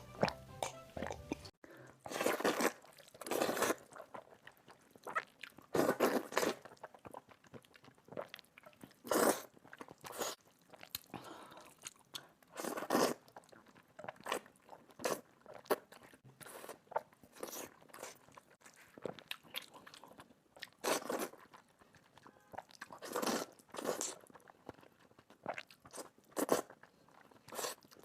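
Close-miked eating: repeated crunchy bites of crispy food, each crunch about a second or two apart, with chewing in between.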